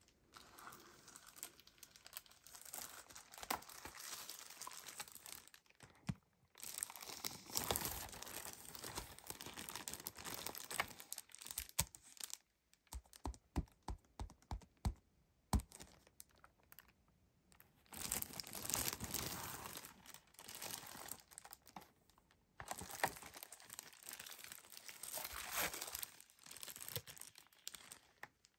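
Loose clear plastic wrapping on a boxed phone case crinkling as hands grip and turn the package, in stretches broken by short pauses. Around the middle comes a run of about eight sharp taps, a fingertip tapping on the plastic-covered box.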